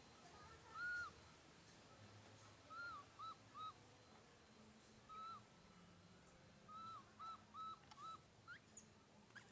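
Young monkey calling with short, high, arched cries, about ten in all. They come singly or in quick runs of three or four, and two shorter rising ones come near the end.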